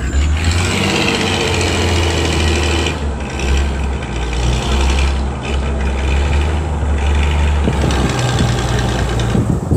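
A vehicle engine running steadily with a low rumble, which thins out near the end.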